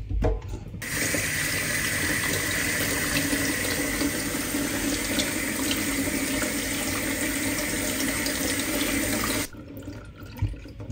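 Kitchen tap running, its stream falling onto plums in a metal colander in a stainless steel sink. The water is turned on about a second in and shut off shortly before the end.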